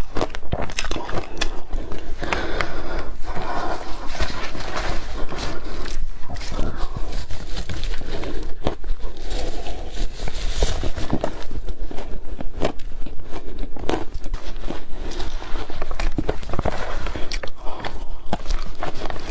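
Close-miked biting and chewing of crunchy frozen yellow powdery 'snow', a dense run of crisp crunches and crackles with mouth sounds, going on without a break.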